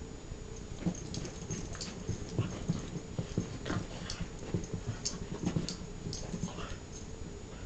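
Boston terriers' paws scrabbling and thudding on a rug as they dart and tussle, with many short, irregular knocks and scuffles.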